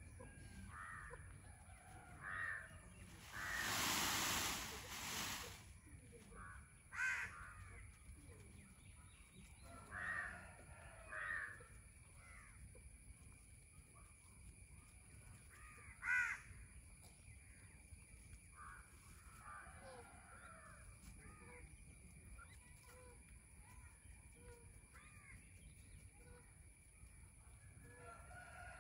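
Crows cawing now and then, with a few softer bird calls between, over a faint outdoor background. About four seconds in comes a two-second burst of rustling noise, the loudest thing heard.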